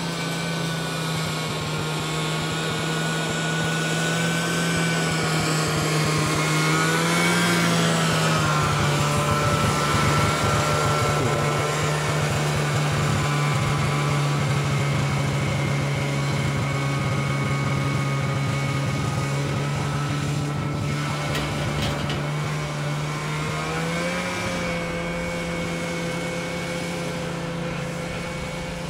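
Snowmobile engine running steadily as it travels along a groomed slope, its pitch shifting briefly about eight seconds in and again about twenty-four seconds in.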